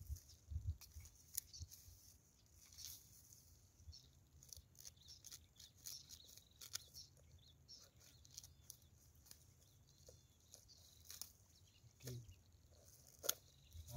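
Faint rustling and scattered small clicks of hands working a nylon mesh net bag of mud crabs, with one sharper click near the end.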